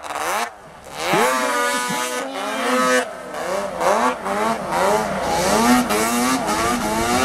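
Racing snowmobile's two-stroke engine under full load climbing deep snow, its pitch rising and falling again and again as the rider works the throttle. It drops away briefly about half a second in.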